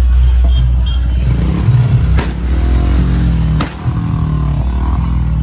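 Motor vehicle engines running and revving, over a strong steady low hum, with two sharp cracks about two and three and a half seconds in.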